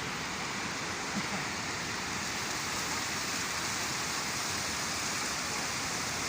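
Waterfall of spring water gushing out of a rock face and splashing down, a steady rushing hiss.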